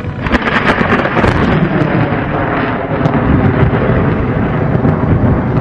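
Thunder cracking in suddenly, then rolling on with a heavy low rumble and scattered sharp crackles.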